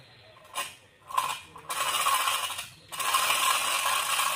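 Manual chain block (chain hoist) being worked by its hand chain: chain rattling over the wheel with a ratcheting clatter, first in short pulls, then in two steady runs with a brief break near the middle.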